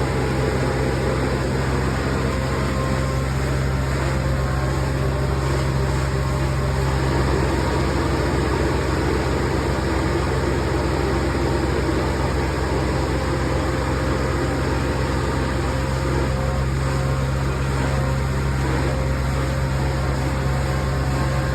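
Hazelnut harvesting machine running steadily: a constant engine drone with a noisy rush of air over it.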